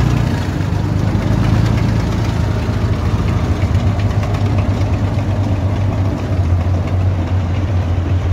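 Diesel engines of BMP-2 Sarath tracked infantry combat vehicles idling close by, a steady low hum with a light clatter.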